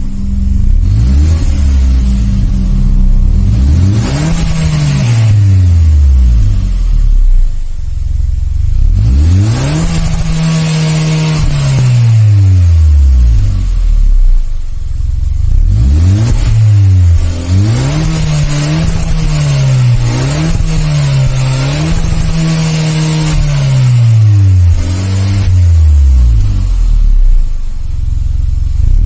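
Stock exhaust of a 2018 Hyundai Elantra Sport's 1.6-litre turbocharged four-cylinder, revved again and again. The pitch climbs and falls back each time: one longer rev, then a string of quick blips, settling to a low idle note between them.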